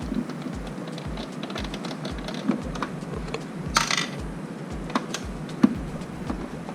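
Small clicks and taps of a screwdriver and screw on the printer's plastic casing as a screw is put back in, with a short scraping rattle about four seconds in and a sharp click later.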